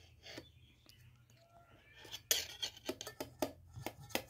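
Metal spoon clinking and scraping against a stainless steel bowl as a toddler scoops up her food, a rapid run of sharp clicks, about five a second, starting about two seconds in.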